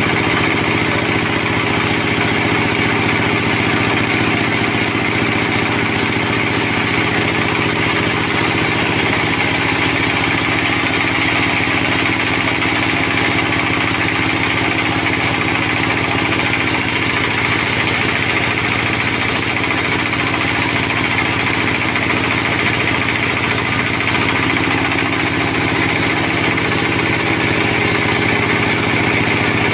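Sawmill band saw running steadily as its blade rips lengthwise through a sonokeling (Indian rosewood) log on the feed carriage, an even, unbroken machine sound.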